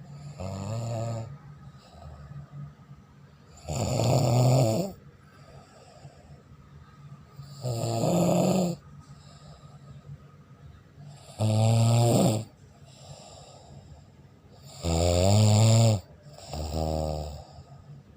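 A sleeping person snoring loudly: six rasping, roughly one-second snores about every three to four seconds, the last two coming in quick succession, with faint breathing between them.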